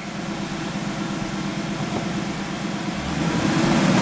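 Ford Mustang GT's 5.0-litre V8, heard inside the cabin, idling steadily just after a fresh oil change with no knocking noise: the lifters and cams are getting enough oil. About three seconds in, the revs begin to climb.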